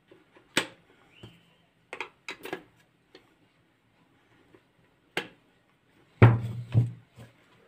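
Sharp clicks and knocks as the steel beaters are pushed into a Kenwood hand mixer and lock in place, and as the plastic mixer body is handled, with a heavier knock near the end. The motor is not running.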